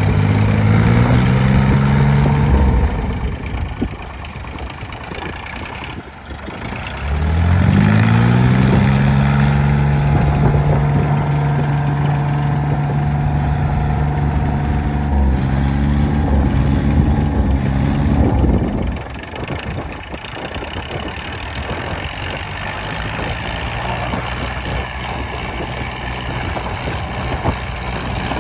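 Three-cylinder diesel tractor engines straining under full load in a tractor tug-of-war. Revs climb briefly at the start and ease off. About seven seconds in they rise again and are held steady at high revs until about two-thirds of the way through, then drop away to lower, rougher running.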